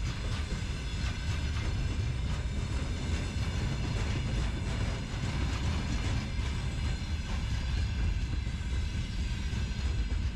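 Footsteps crunching in snow at a steady walking pace, over a continuous low rumble.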